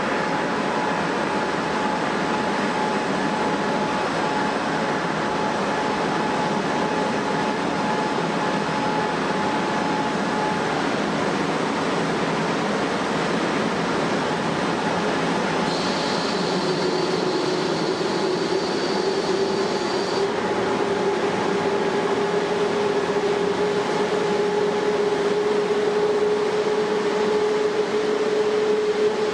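Jet airliner engines running steadily, a rushing noise with whining tones; a little past halfway a lower tone slides up and then holds, and the sound grows slightly louder near the end.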